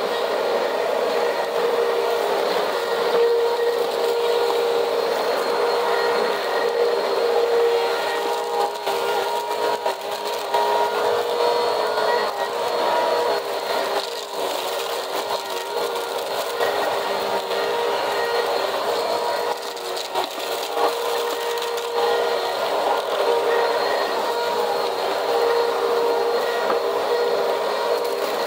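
Upright vacuum cleaner running steadily on a cement floor, its motor giving a constant whine with brief dips in pitch and level several times as it is pushed about.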